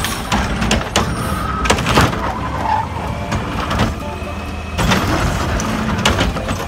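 A front-loading garbage truck running while its hydraulic can-grabbing arm picks up a wheeled plastic bin, lifts it and tips it into the front container, with repeated clanks and bangs over the steady engine rumble.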